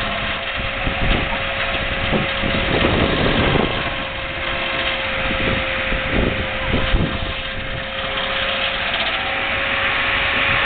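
Machinery running steadily with a constant high whine and irregular low knocks and thuds.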